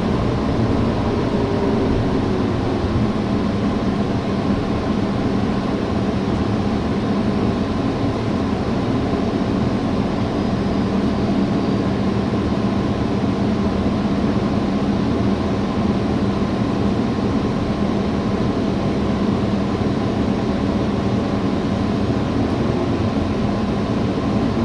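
Steady engine drone and road rumble inside a moving city bus, with an even low hum.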